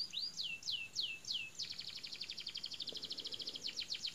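A songbird singing: a few slow, falling whistled notes, then a fast trill of short repeated notes, then more quick notes.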